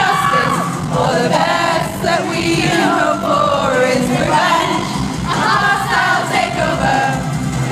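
Live concert music recorded from the audience: several voices singing together over the band's loud, dense backing.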